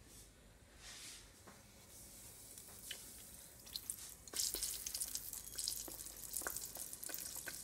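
Hot cooking oil in a pan crackling faintly with a few small pops, then, about four seconds in, a round of float bake dough goes into the oil and it breaks into a much louder, steady sizzle with dense crackling as the dough deep-fries.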